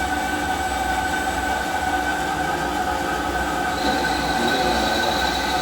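CNC lathe turning a metal workpiece: a steady machining whine from the spindle and the cut, with several held tones. A higher whistle joins about four seconds in.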